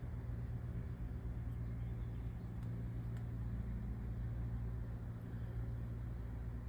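A steady low hum, like a vehicle engine idling, with a couple of faint ticks near the middle.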